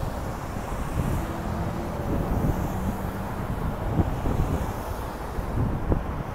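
Street traffic going by: car engines and tyres with an approaching city bus, a steady low rumble with wind buffeting the microphone.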